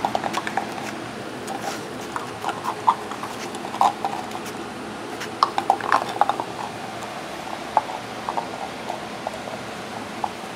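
Labrador retriever puppies scampering and playing on a concrete floor: scattered light clicks, taps and scrapes of claws and a small plastic cup being knocked about, irregular and with no rhythm, over a steady background hum.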